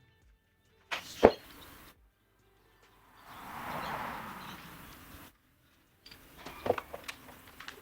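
Short edited snippets of clicks and knocks from prying at a car's rear wing, with one sharp loud click about a second in and a cluster of knocks near the end. A smooth hissing swell in the middle. The snippets are separated by abrupt silent cuts.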